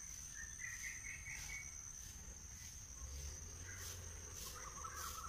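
Crickets trilling steadily at a high pitch, with short bird chirps about a second in and again near the end.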